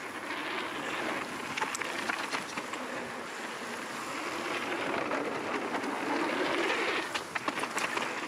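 Mountain bike rolling fast down a dirt trail: a steady rush of knobby tyres on dirt and loose gravel mixed with wind, with scattered sharp clicks and rattles from the bike.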